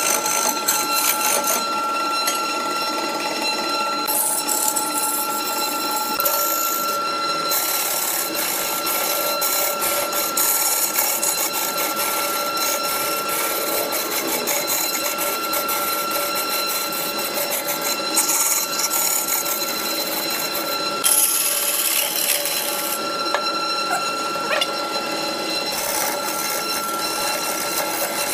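Wood lathe running while a hand-held turning tool cuts a large spinning block of wood: a steady high whine under a rough scraping hiss that comes and goes as the tool bites.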